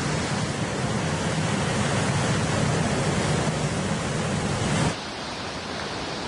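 Heavy storm surf breaking and churning over rocks, a loud, dense, continuous rush of water. About five seconds in it cuts suddenly to a quieter, steadier rush of the distant stormy sea.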